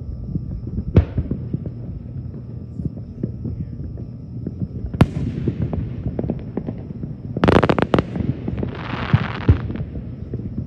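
Aerial fireworks shells bursting with sharp bangs about a second in and about five seconds in, each followed by scattered crackling pops. A dense burst of crackling comes near eight seconds, then a short hiss.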